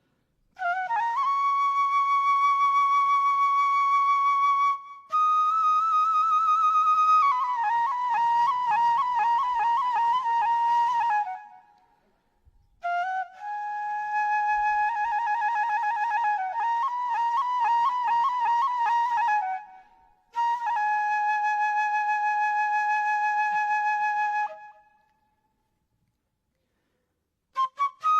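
Solo flute playing a slow melody of long held notes, some with vibrato, in phrases separated by short pauses.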